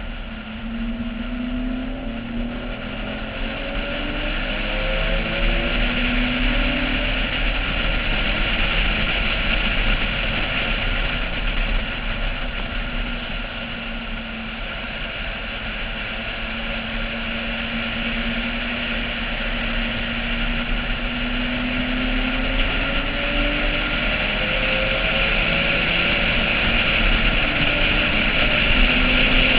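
Porsche 996's flat-six engine under way at track speed, heard from a roof mount over heavy wind and road rush; its pitch climbs slowly and drops back several times as the car accelerates, shifts and brakes, and the whole sound grows louder toward the end.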